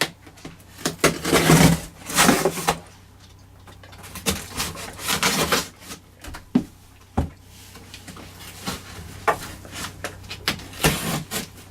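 A cardboard shipping box being opened by hand: irregular scraping, rustling and tearing of cardboard and tape, with a few sharp knocks.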